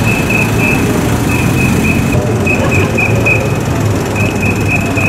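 Street traffic running, with a high steady-pitched tone pulsing in short runs of quick beeps throughout.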